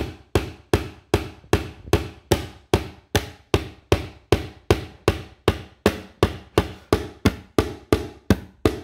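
Claw hammer driving a nail into a wooden board: a steady run of quick, even blows, about three a second.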